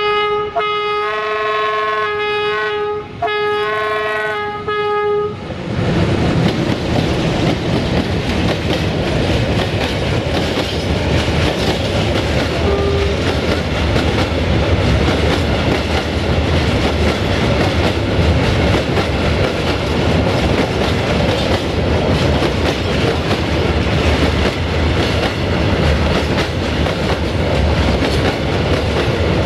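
An ND2 diesel-electric locomotive's horn sounds several blasts over one held tone, ending about five seconds in. The locomotive then passes close by and a long train of empty coal hopper wagons rolls past, with steady noise of wheels on the rails.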